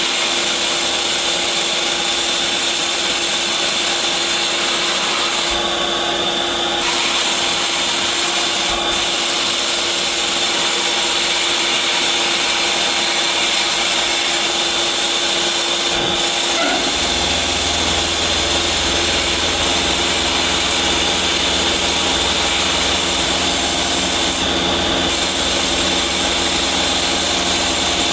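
A power tool running continuously with a steady rubbing, grinding noise. About 17 seconds in, its motor note drops a little and a low hum joins it.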